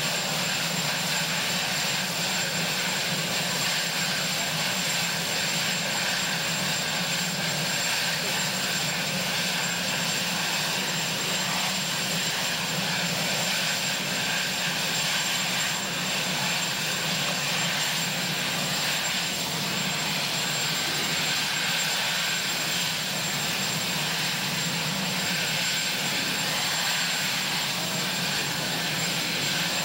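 Marine One, a Sikorsky VH-3 Sea King twin-turbine helicopter, running steadily while parked on the ground.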